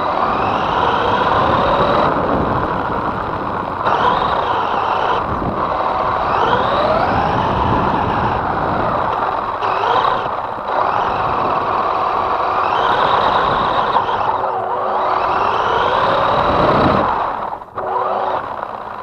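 Feiyue FY03 Eagle-3 1/12 4WD RC truck's electric motor and gears whining as heard from the truck itself, the pitch rising each time it speeds up, several times over, with tyre hiss on wet paving. The sound breaks off abruptly a few times.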